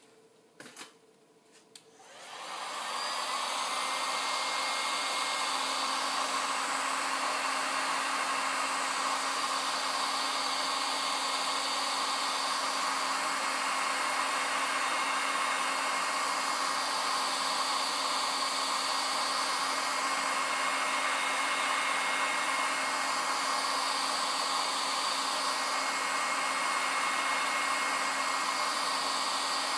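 Handheld electric heat gun switched on about two seconds in, its fan spinning up and then blowing steadily with a hum and a high whine, drying a freshly thrown clay cup on a spinning potter's wheel. A few faint knocks come before it starts.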